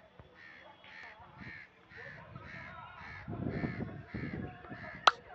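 A crow cawing over and over in a steady series, about two caws a second. A low rumble swells in the middle, and a single sharp click near the end is the loudest sound.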